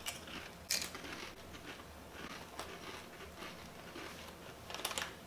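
Two people crunching Lay's potato chips: scattered crisp crackles while chewing, the loudest about a second in and a few more near the end.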